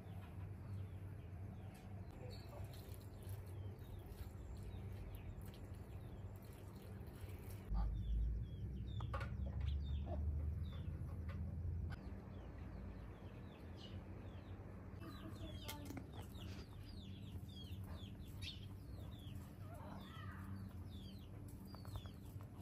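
Chickens clucking in a farmyard, with many short, quick chirps from birds scattered throughout. A low rumble rises for about four seconds near the middle and is the loudest sound.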